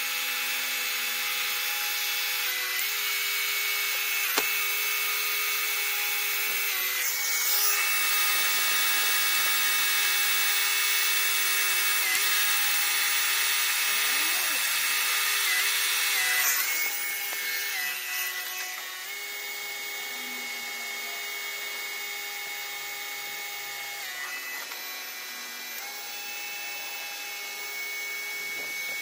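Electric pressure washer running, a steady motor whine that steps up and down in pitch now and then, over the hiss of its water spray. The spray hiss is loudest in the middle and drops off sharply at about two-thirds of the way through, leaving the motor whine quieter.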